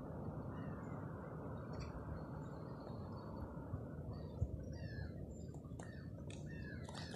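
Small birds chirping in short, quick, high calls over a steady low background rumble. The chirps start about halfway through and grow busier near the end.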